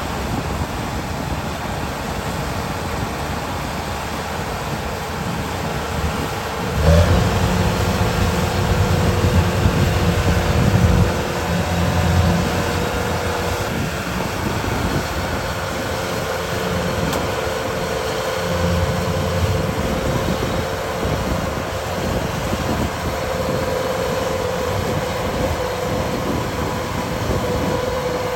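Kubota DC-105X combine harvester's diesel engine running steadily, with a held whine over its rumble. The low rumble grows heavier for a few seconds about seven seconds in, and again briefly later.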